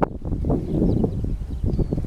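Wind buffeting the microphone: an irregular, gusty rumble with no steady tone.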